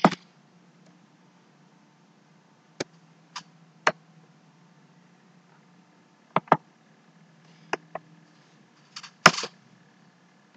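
Irregular sharp clicks of a computer mouse and keys being worked, some coming in quick double-click pairs, over a faint low hum.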